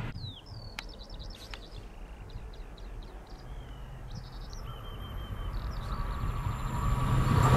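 Small birds chirping and whistling in short calls and glides. From about halfway the sound of an approaching TGV Lyria high-speed train comes in as a low rumble and rising rush, growing steadily louder toward the end.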